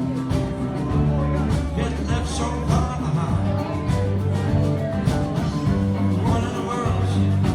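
Live band playing a country-rock song, with sustained bass notes and steady drum and cymbal strokes.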